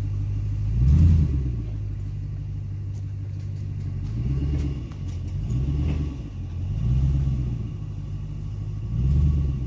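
Vehicle engine running low and steady, swelling with about five short bursts of throttle as it strains on a rope tied to a hung-up tree.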